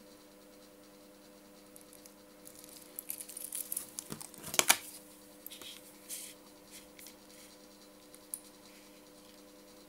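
Stainless steel watch bracelet and folding clasp being handled: light metallic clinks and scratches that build to a sharp click about four and a half seconds in, followed by a few faint clicks.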